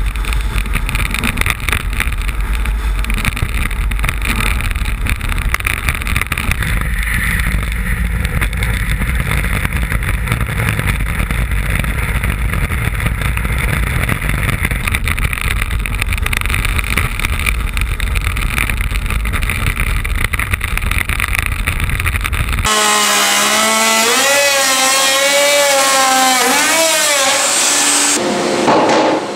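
Wind buffeting the microphone and a steady rushing hiss from a sail-powered iceboat running fast over ice. About three-quarters of the way through it cuts to a handheld electric router cutting plywood, its motor whine wavering up and down in pitch as it takes the cut.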